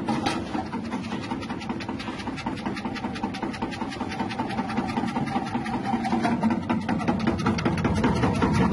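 Electric chip-slicing machine with a 180-watt motor running steadily while its rotating blade cuts produce pushed down the feed tube into crinkle-cut slices, a steady hum with a fast, even ticking of the blade.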